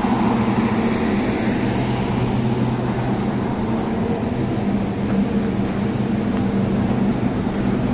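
Exhaust fans of Greenheck rooftop dedicated outdoor air (energy recovery) units running steadily, blowing stale air out with a constant rush and a low hum.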